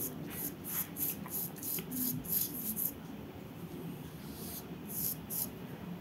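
A large paintbrush swishing dark-blue gouache across paper in quick strokes, about five a second, stopping for a moment in the middle, then a few more strokes near the end.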